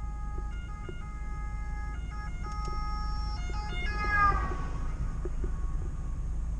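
Engine and road rumble inside the cab of a UAZ van on the move. Over it, tones step from pitch to pitch and end in a falling swoop about four seconds in.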